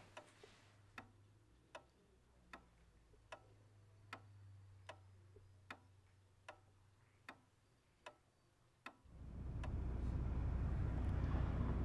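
A clock ticking steadily, a little more than once a second, over a faint low hum in a quiet room. About nine seconds in it cuts off and a louder steady outdoor rumble takes over.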